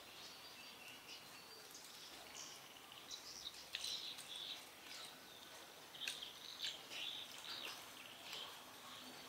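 Faint, scattered bird chirps and tweets over quiet outdoor background noise.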